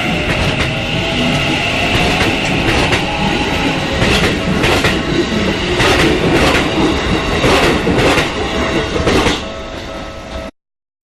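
Keikyu Line train passing over a level crossing at close range: a loud steady rumble with the wheels clacking over the rail joints at uneven intervals. The sound cuts off suddenly near the end.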